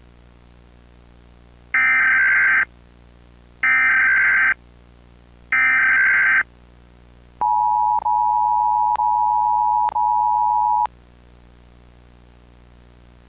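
Emergency Alert System SAME header: three roughly one-second bursts of screeching digital data tones, followed by the two-tone EAS attention signal held for about three and a half seconds, then cutting off. Together they mark the start of a new emergency alert.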